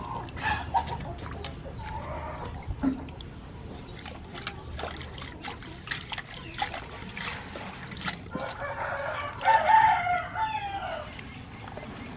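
A rooster crows once about eight seconds in, the loudest sound, over the splashing of water as peeled young watermelons and greens are washed by hand in a steel bowl.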